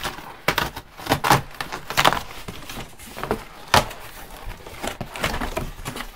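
Cardboard delivery box being opened and handled: a run of irregular scrapes, rustles and knocks, with one sharp knock past the middle.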